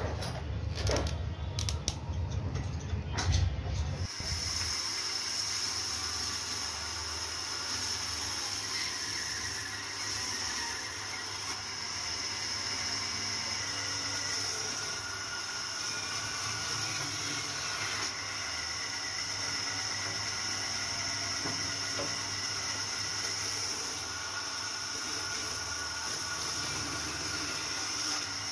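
A few sharp knocks of wooden parts being fitted together. About four seconds in, a band saw takes over, running and cutting through a wooden plank with a steady, even hiss.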